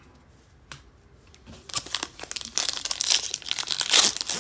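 Foil wrapper of a 2011 Rookies and Stars football card pack being torn open and crinkled by hand. The crackling starts about a second and a half in and is loudest near the end.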